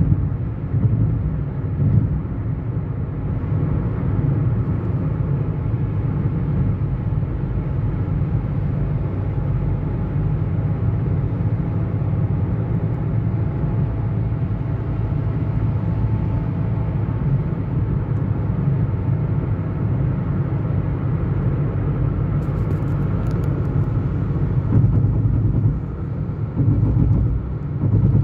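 Car driving along a road: a steady low rumble of tyres and engine that swells twice near the end.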